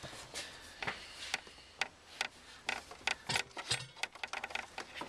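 Irregular clicks and taps of plastic engine-bay parts and a cable being handled by hand, around a dozen sharp ticks scattered unevenly.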